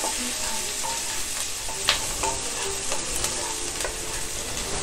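Sliced onions sizzling in hot ghee in a pan while a spatula stirs them: a steady frying hiss with scattered scrapes and knocks of the spatula against the pan, the sharpest knock about two seconds in.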